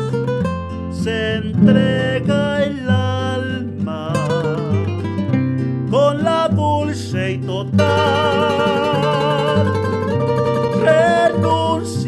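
A requinto plays a bolero melody, with wavering vibrato on held notes, over a nylon-string guitar's stepping bass notes and chords.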